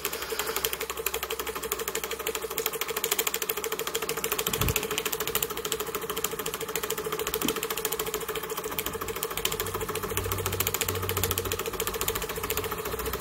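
Miniature horizontal steam mill engine running in reverse: a fast, even mechanical ticking from its moving parts, with a steady hum underneath.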